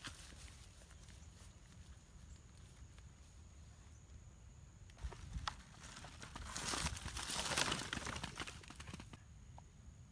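Footsteps through grass, then about six seconds in a plastic basket of sugar apples is tipped onto a pile of the fruit: a few seconds of rustling and knocking as the fruit tumbles against fruit and grass.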